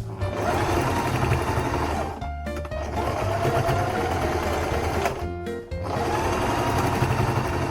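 Electric sewing machine stitching in three runs of about two seconds each, stopping briefly between them, the motor's pitch rising as it gets up to speed. Background music plays underneath.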